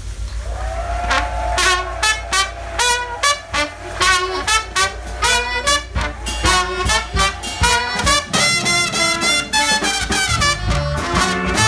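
Live jazz band with a horn section of trumpet, trombone and saxophone playing short, punchy repeated stabs, about two a second, over the rhythm section, after a single held horn note that opens the tune.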